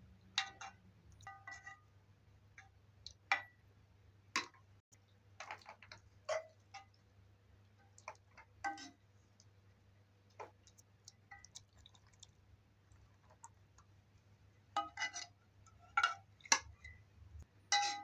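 A metal spoon clinking and scraping against a dark metal pot and a round metal serving tray as stew is spooned out: scattered clicks, a few with a short metallic ring, bunched together near the end.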